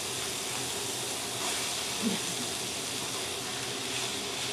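Garlic frying in a hot pan, a steady sizzling hiss.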